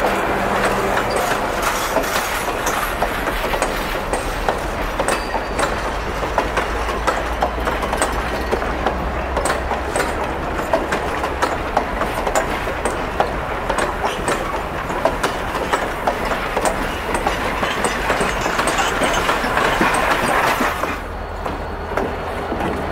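Steel wheels of passenger coaches rolling past close by, with a steady rumble and many sharp clicks as the trucks cross the rail joints. The sound cuts off abruptly near the end, leaving a quieter rumble.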